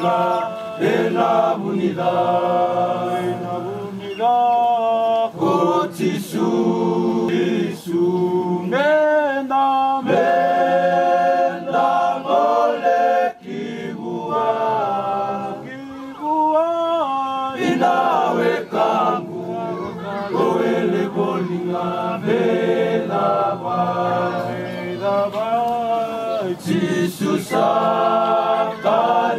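A group of Fijian rugby players singing together unaccompanied in harmony, in long held phrases with short breaks between them.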